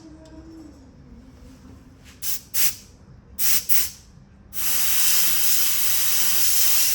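Pressurized jet hissing through the engine's oil jet to check that it is clean and not clogged: four short blasts, then a long steady blast starting a little past halfway.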